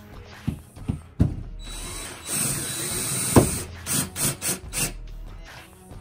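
DeWalt cordless drill/driver driving screws into a lock's metal mounting plate: a few sharp clicks, then a steady run of about a second and a half ending in a loud click, then several short bursts.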